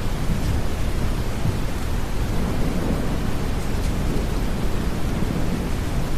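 Deep brown noise blended with steady rain, with a low rumble of thunder swelling slightly through the middle.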